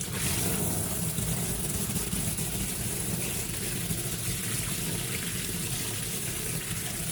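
Household water pipe droning steadily, with a hiss of rushing water over the hum, setting in abruptly as the tap is closed off tight.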